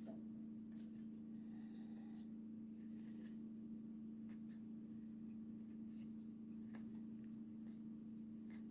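Faint slides and light clicks of baseball trading cards being handled and flipped through one by one, over a steady low hum.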